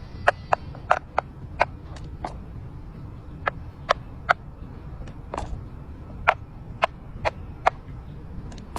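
Silicone pop-it fidget toy bubbles being pressed, giving a series of sharp single pops at an uneven pace, about sixteen in all, with a short pause a couple of seconds in. A steady low background hum lies underneath.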